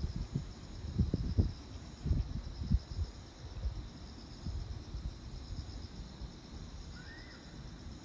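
Crickets chirping in a steady trill, with a second, much higher chirp pulsing about twice a second through the first half. A few low thumps, the loudest sounds, come in the first three seconds.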